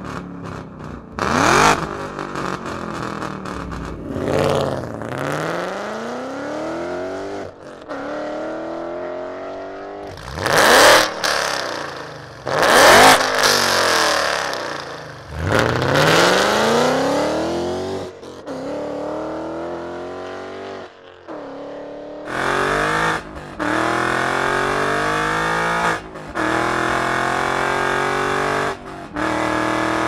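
2015 Ford Mustang GT's 5.0 V8 breathing through Borla long tube headers and a 3-inch Borla S-Type or ATAK exhaust, accelerating and revving hard. The pitch climbs and falls repeatedly through the gears, with the loudest runs near the middle. Later comes a steadier, higher note that cuts off abruptly several times.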